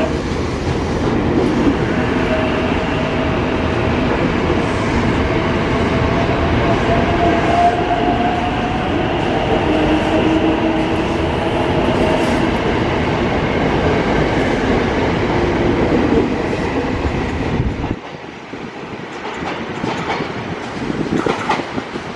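KRL commuter electric train running past close by along the platform: a steady rush of wheel and body noise, with a motor whine that rises slowly in pitch as the train gathers speed. About eighteen seconds in it cuts to a quieter scene of an ex-Tokyo Metro 6000 series train rolling in, with a few wheel clacks.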